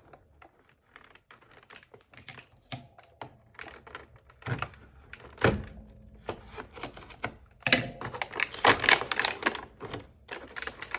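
Irregular clicks and taps of hands opening an advent calendar window and handling the small fidget toy inside, with a sharper knock about halfway through and a quick run of clicks a little later.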